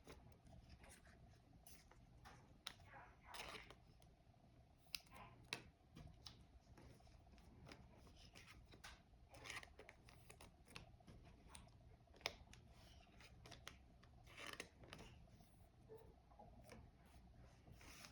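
Quiet, scattered clicks and short swishes of trading cards being handled, slid and rearranged on a table.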